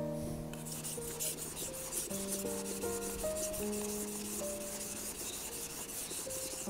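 Warikomi santoku kitchen knife blade being stroked rapidly back and forth on a wet whetstone: a gritty, rhythmic scraping that starts about half a second in, over soft background music with sustained notes.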